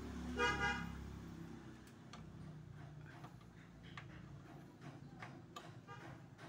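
Light scattered clicks and ticks of a thin metal rod being poked into the gap beside a van's sliding-door outside handle. They follow a brief high-pitched tone about half a second in.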